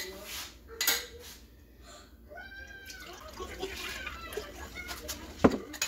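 Raw milk poured from a glass jar into a stainless steel pot, with a click about a second in and a sharp clink of glass on metal near the end, the loudest sound. In the middle a cat meows a few times with rising and falling calls.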